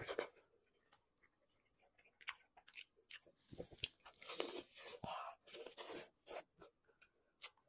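Close-up eating sounds of braised beef trotter: moist smacks and sticky clicks of biting and chewing the gelatinous tendon, in irregular clusters with a short lull about a second in.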